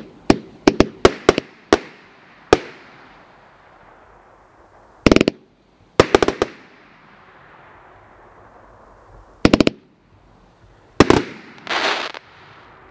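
Multi-shot consumer firework cake (CE900) firing. Sharp bangs come in quick groups a few seconds apart: a rapid run in the first couple of seconds, then volleys about five, six, nine and eleven seconds in. Near the end comes a burst of hissing crackle as glittering stars break.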